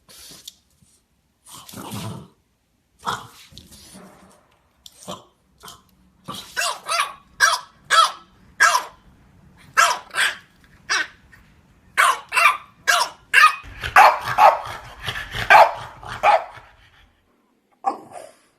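French Bulldogs barking, higher and softer than a big dog's bark: a few scattered barks at first, then a fast run of yappy barks from about a third of the way in, densest shortly before the end, with one last bark near the end.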